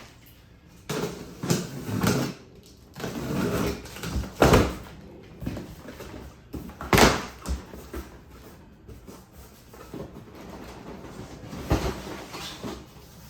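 A cardboard shipping box being opened and its contents handled: rustling, scraping and knocks, with two louder thumps about four and a half and seven seconds in.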